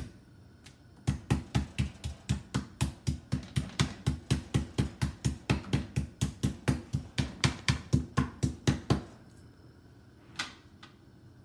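A meat tenderizer pounding a raw pork chop: rapid, regular strikes, about four a second. They start about a second in and stop about nine seconds in.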